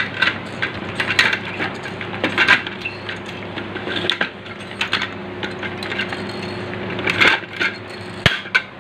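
Hand pop-rivet gun being worked, a run of irregular metallic clicks and clinks as it sets a rivet through a plastic outlet box, over a faint steady hum.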